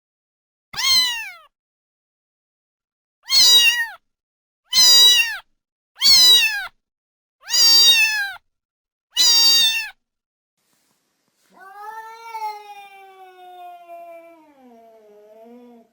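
A cat meowing: six short meows, each falling in pitch, then a longer, lower and quieter meow drawn out over about four seconds.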